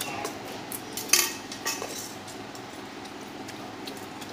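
Clinks and scrapes against a stainless steel bowl as food is scooped from it by hand and spoon, the loudest clink about a second in and a smaller one shortly after.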